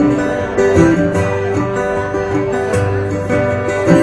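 Live guitar playing an instrumental passage of a slow country song, with steady picked notes between sung lines.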